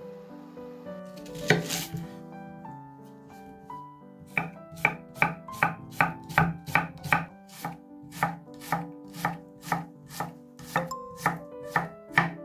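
Kitchen knife slicing an onion on an end-grain wooden cutting board: regular chops, about two to three a second, from about four seconds in. Before that comes a single knock as a glass lid is set on the frying pan. Soft background music with piano-like tones plays throughout.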